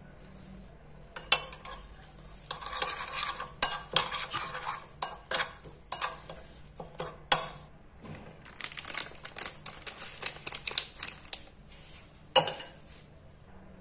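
Steel spoon stirring a thick spice marinade in a glass bowl, clinking and scraping against the glass in uneven bursts. A few sharper knocks stand out, the last about twelve seconds in.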